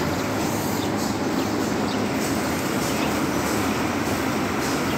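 Homemade 50-inch closed-house barn exhaust fan, driven by an electric motor through a pulley, running steadily: an even rushing of air and mechanical hum from the spinning blades.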